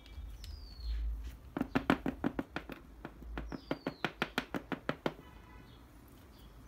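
Toner cartridge's plastic hopper knocked on a wooden workbench in a quick run of about fifteen taps, some four a second, a way of settling freshly poured toner powder. Two short falling chirps sound in the background.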